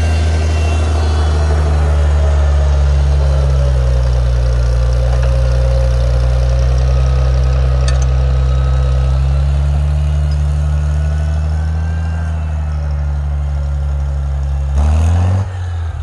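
Farmall 756 tractor's six-cylinder engine running steadily under load while it pushes snow with a rear blade. Its pitch sags slightly and recovers, then the engine revs up briefly near the end.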